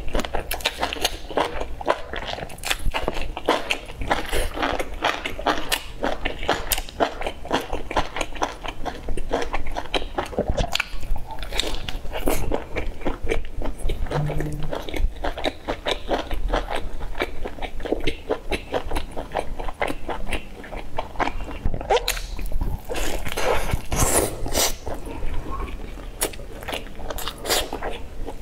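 A person biting and chewing a crispy, flaky pastry close to the microphone: a dense run of small crackly crunches throughout, with a couple of brief pauses.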